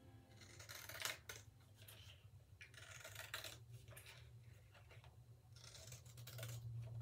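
Scissors snipping through thin card in a run of short, irregular cuts, over a steady low hum.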